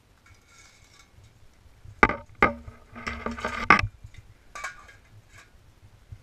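Long metal tongs and blue crabs clanking against a stainless steel stockpot. There are two sharp clanks about two seconds in, then a burst of rattling over a low ring from the pot, and a few lighter knocks after.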